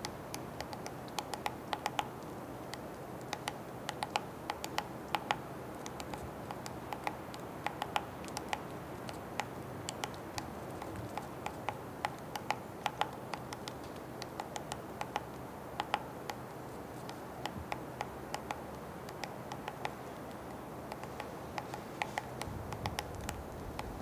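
Three-toed woodpecker pecking at a conifer trunk: irregular sharp taps of its bill on the wood, a few each second. These are scattered feeding pecks, not a steady drumming roll.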